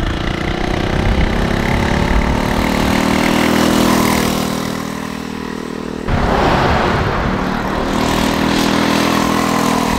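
FRP GMB 100 mini bike's small engine at full throttle with its governor screw backed out, pitch climbing as it speeds up and dipping briefly near five seconds in. About six seconds in a sudden louder rush of noise comes in, and the engine then holds steady at high revs.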